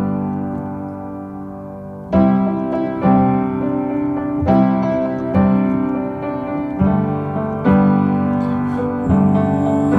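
Background music: piano chords struck about once a second, with no singing.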